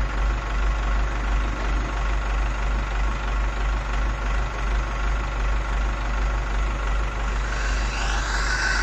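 Truck engine running steadily with a low, throbbing drone, powering the hydraulic system that lifts the truck's LED screen. A hiss rises near the end.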